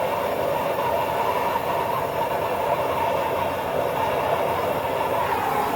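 Loud, steady roar of something running, loud enough to drown out talk, which cuts off abruptly at the very end.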